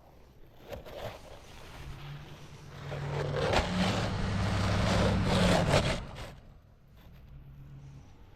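A motor engine hum that builds from about two seconds in, is loudest for a few seconds, then fades, like a vehicle passing by.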